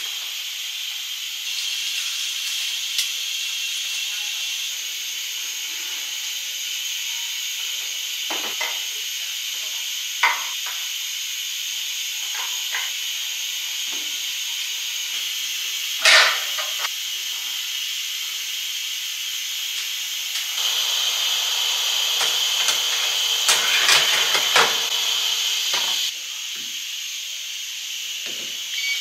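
Small stovetop pressure cooker hissing steam steadily from its valve as it cooks at pressure, the hiss growing louder for a few seconds in the second half. Occasional knocks and clinks of dishes and plates being handled.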